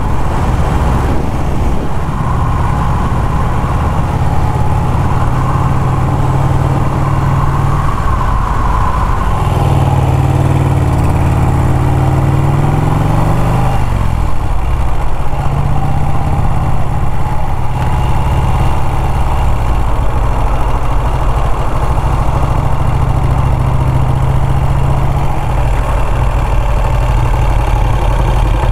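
1951 Vincent Rapide's V-twin engine running on the road under wind rush. The engine note drops and bends about a third of the way in as the bike slows, then runs steadily at low speed.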